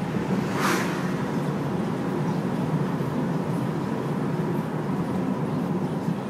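Steady road and engine noise heard inside a moving car's cabin, with a brief hiss about a second in as an oncoming van passes.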